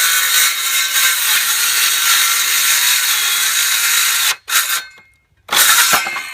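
Ryobi 18-volt cordless 5-1/2-inch circular saw cutting through a dense MDF board. It runs steadily for about four seconds, then suddenly cuts out, and is restarted in two short bursts. The saw keeps stalling, which the owner puts down, probably, to its protection circuit cutting the motor.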